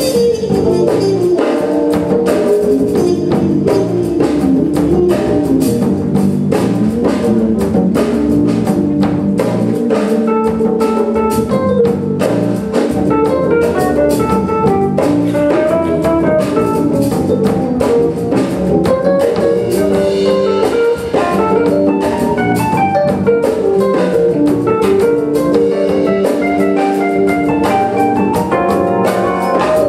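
A big band plays live: brass and saxophones carry stepping melodic lines over drum kit, congas, bass guitar and keyboard, with steady drum strokes throughout.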